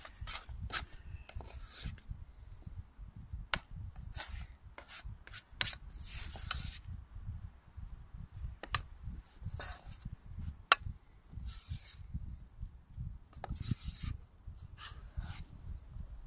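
Spoon scraping and knocking against a metal camping pot while stirring thick mashed potatoes, in irregular short scrapes and sharp clicks.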